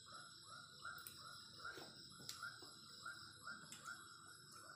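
Faint, even chirping from a small calling animal, about three short rising chirps a second, over a steady faint high whine, with a few faint clicks.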